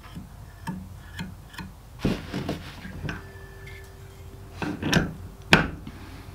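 Light clicks and knocks of a Lansky knife-sharpening clamp being handled, lifted off its metal pedestal mount and set back on it, with a brief scrape about two seconds in and a sharper knock near the end.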